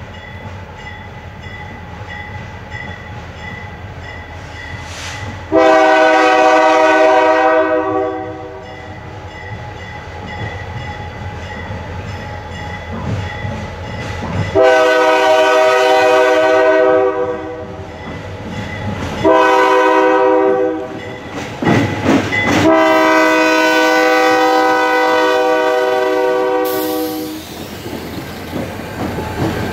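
CN diesel locomotive's multi-tone air horn sounding the grade-crossing signal: two long blasts, a short one and a final long one, over the rumble of the approaching freight train. Near the end the locomotives pass close by with the engine and wheels on the rails.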